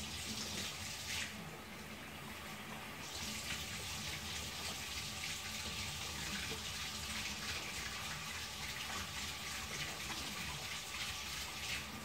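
Electric drip coffee maker brewing, with a steady watery hiss of hot water running through onto the coffee. The hiss eases for a moment about a second in and comes back about three seconds in.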